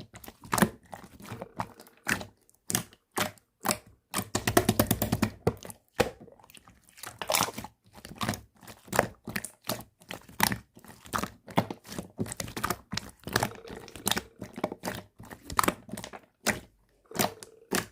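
Slime being squeezed and pressed by hand, making a string of sharp pops and clicks, with a fast crackling run about four seconds in.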